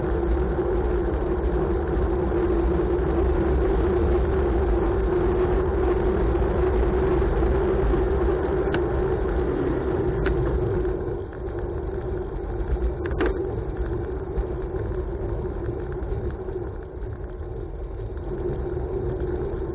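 Pickup truck engine and road noise heard from a bicycle-mounted camera, mixed with wind on the microphone, as the truck runs close in front of the rider. A few sharp clicks come near the middle, and the sound gets quieter after about eleven seconds as the truck pulls away.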